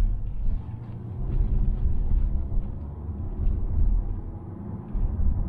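Road and tyre rumble inside the cabin of a 2020 Mazda Atenza (Mazda6) with the 2.5L engine, under way. Over it come faint, irregular ticks from interior trim rattling as the body shakes over the road.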